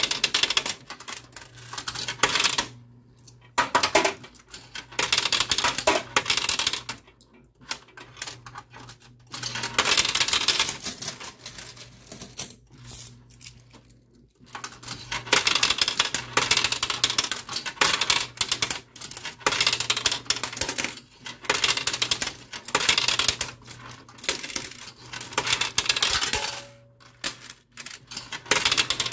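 Quarters clinking and clattering in a coin pusher arcade machine as they are played onto the coin-covered playfield. The clatter comes in repeated bursts of a second or two with short pauses between, over a low steady hum.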